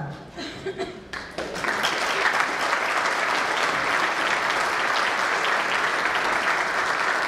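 Audience applause: a few scattered claps at first, swelling into full, steady applause about a second and a half in.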